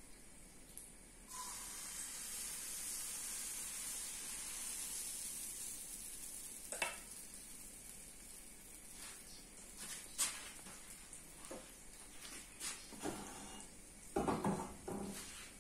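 Pancake batter poured into a hot nonstick frying pan, setting off a sizzle about a second in that slowly fades. A few light clinks, and a metal clatter near the end as the stainless steel mixing bowl is set down on the stove.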